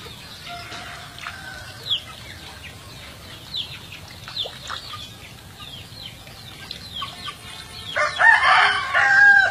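A rooster crows loudly near the end, one held call of about a second and a half, over short high falling chirps that repeat throughout.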